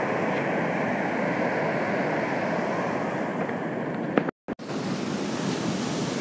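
Rough storm surf breaking and washing up the beach, with gusting wind buffeting the phone's microphone. The sound cuts out completely for a moment about four seconds in.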